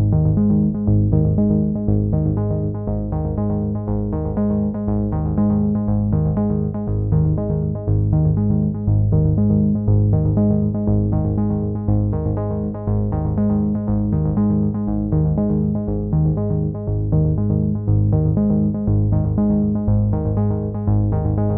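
Background instrumental music: a synthesizer playing a steady, repeating pattern of notes and chords.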